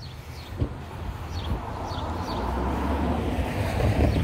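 A road vehicle passing the crossing, its engine and tyre noise swelling gradually over a few seconds, with faint short high chirps repeating throughout.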